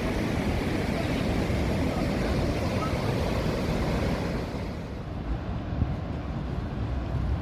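The Rhine Falls waterfall rushing: a steady, heavy wash of falling water whose high hiss thins out a little over halfway through.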